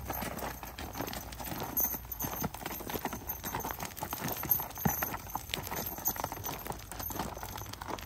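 Mule hooves clip-clopping as the working team walks and shifts about, a scatter of irregular light knocks.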